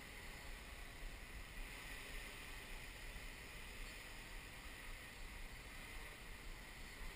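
XAircraft X650V X8 coaxial octocopter hovering at a distance, its motors and propellers giving a steady hum, with low wind rumble on the microphone.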